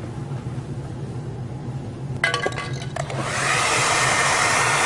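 A few clicks a little over two seconds in, then a hair dryer starts up and runs steadily, a rush of air with a whine on top, blowing heat onto a dented car bumper to soften it.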